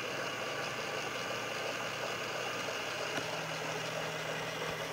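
Two small DC gear motors turning the wheels, switched through a transistor by a micro:bit, whirring steadily. A lower steady hum joins about three seconds in as the motor speed is stepped up.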